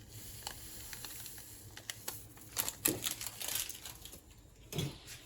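A few light clicks and rustles from a small paper sachet, crinkled and tapped as half a packet of vanilla sugar is shaken into the mixing bowl.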